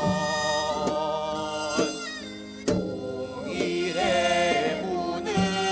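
Korean traditional-style (gugak) song performance: voices hold long, wavering sung notes over instrumental accompaniment, with a few sharp percussive strokes.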